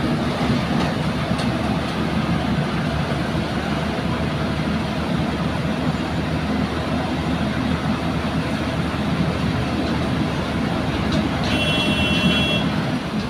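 JCB crawler excavator's diesel engine running steadily with a low drone. A brief high-pitched tone sounds for about a second near the end.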